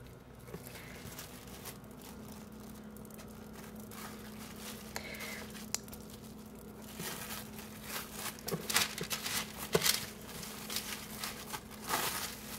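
Clear plastic wrap crinkling and crackling as hands gather it around a soft round of cheese, starting about halfway through. A faint steady hum runs underneath.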